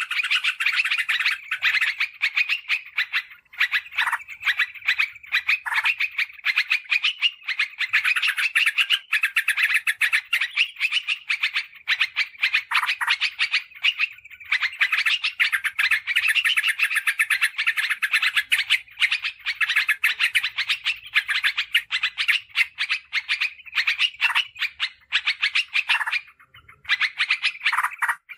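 Yellow-vented bulbul (trucukan) calls: a rapid, almost unbroken run of short chattering notes, with a few brief pauses.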